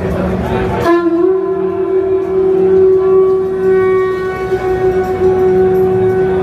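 A loud, steady horn-like tone played through large sound-system loudspeakers. It comes in about a second in with a slight upward bend and is held, over a pulsing bass.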